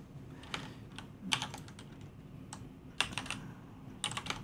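Computer keyboard typing: a few short runs of key clicks with pauses between them, as text is entered in a terminal editor.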